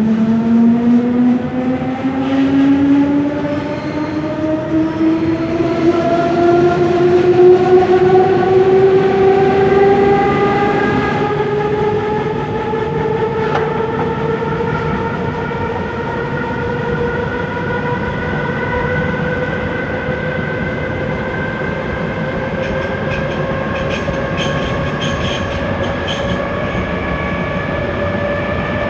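Berlin S-Bahn class 485 electric train accelerating away from a station, heard from inside a carriage: its traction drive gives a whine that climbs steadily in pitch, quickly at first and then more slowly, over the rumble of the wheels on the track. A few faint clicks come near the end.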